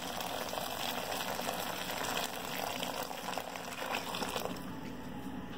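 A steady stream of hot water from a kettle pouring into a pan of simmering chickpeas.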